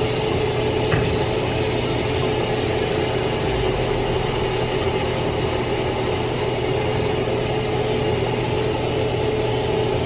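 Steady electric machine hum with a constant mid-pitched tone and an even level, and a faint click about a second in.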